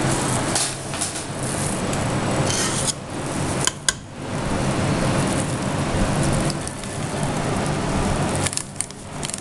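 A metal scoop scraping and clinking against a stainless steel bowl as thick waffle dough is stirred and scooped, over a steady rushing hiss with a low hum. There are sharp clinks about four seconds in and again near the end.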